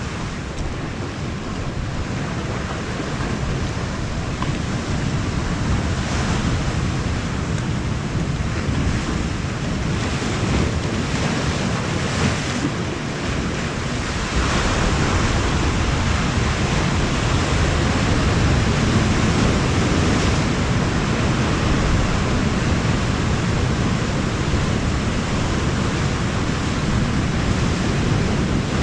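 Sea surf washing in steadily with wind buffeting the microphone, getting louder about halfway through.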